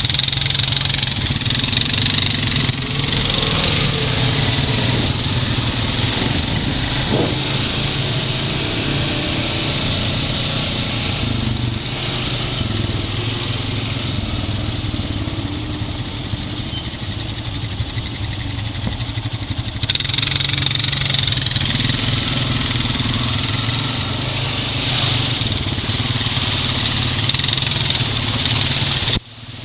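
Honda Rancher 420 ATV engine running steadily while the quad rides a dirt trail, heard up close from the machine itself. It grows louder about twenty seconds in and cuts out briefly near the end.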